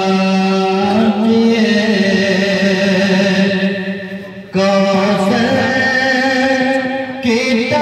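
A man chanting devotional Urdu verses into a microphone, drawing out long, wavering held notes. He breaks off briefly about four and a half seconds in, then starts a new phrase.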